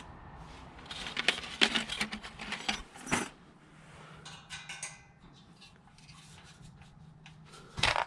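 Small metal hardware, bolts and nuts, clinking and clicking as it is handled, in a run of quick clicks over the first three seconds, then lighter ticks and one sharper click near the end.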